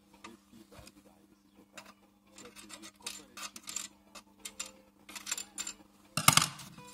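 Plastic clicking, scraping and rubbing as a tool works on the dual push-button flush mechanism of a Serel toilet cistern lid, with a louder clatter a little after six seconds in. A faint steady hum runs underneath.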